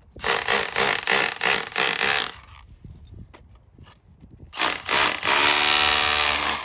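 A power tool, likely cutting into pipe, run in a quick series of short bursts for about two seconds, then after a pause two more short bursts and a steadier run of over a second near the end.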